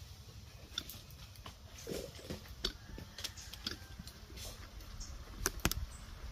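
Freshly lit charcoal in a coal pot crackling: irregular sharp clicks and pops, the two loudest close together near the end.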